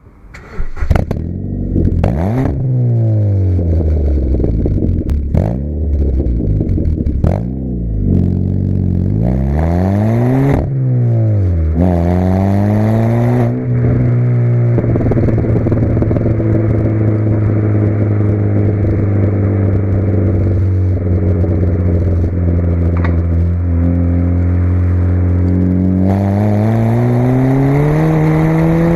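Ford Fiesta Mk6 Zetec S 1.6-litre petrol four-cylinder engine through a non-resonated cat-back exhaust, revved up and down several times in the first dozen seconds with short sharp pops between the blips. The revs then hold steady for about ten seconds and climb again near the end.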